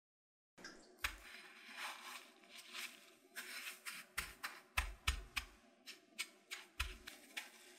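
Dry breadcrumbs crunching and rustling as a batter-coated corn dog on a stick is rolled and pressed into a tray of them, with many small crackles and a few dull thumps. It starts about half a second in.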